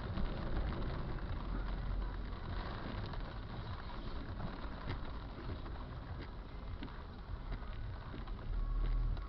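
Heavy rain falling steadily, with many scattered drops ticking on a surface over a low steady rumble.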